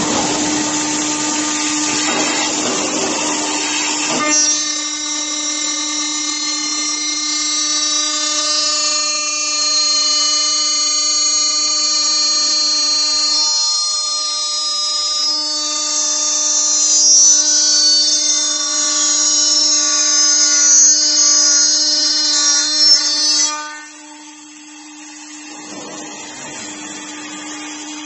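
Saw motor of a CNC aluminium-profile cutting machine running with a steady, high, even whine. A rougher hissing noise lies over it for the first four seconds. Near the end the whine cuts off and the sound drops.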